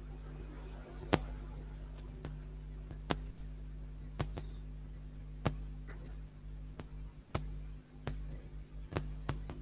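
Sharp single clicks at irregular intervals, about one a second, over a steady low hum.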